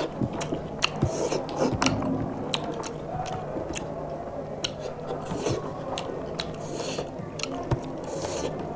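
Close-miked eating sounds of rice and fish curry eaten by hand: chewing with many irregular mouth clicks and lip smacks, and fingers mixing rice on plastic plates.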